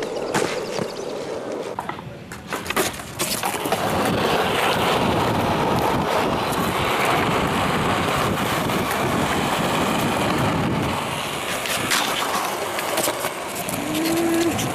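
Skateboard wheels rolling on concrete, with sharp clacks of the board hitting the ground near the start, about three seconds in and again near the end.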